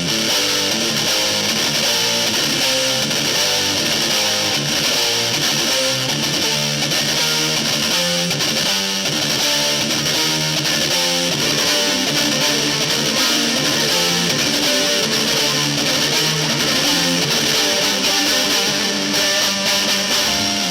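Distorted electric guitar playing a metal riff, notes changing in a steady rhythm, with no drums.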